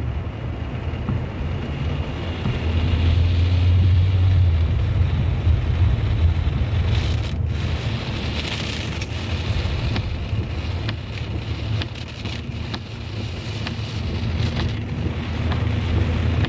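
Heavy rain drumming on a moving car, heard from inside the cabin, with the engine's low hum and the hiss of tyres on the flooded road. The engine swells about three seconds in as the car pulls away.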